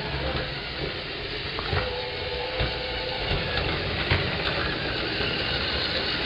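LEGO monorail train running on its elevated track: a steady whirring and rattling from its electric motor and the drive gear meshing with the toothed rack in the track beam, with a few sharp clicks.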